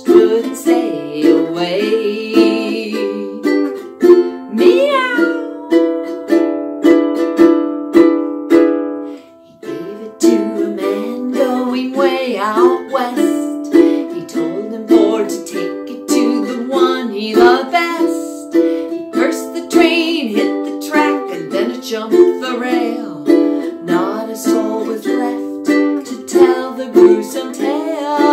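Ukulele strummed in a steady rhythm while a woman sings along. The strumming and singing stop briefly about nine seconds in, then start again.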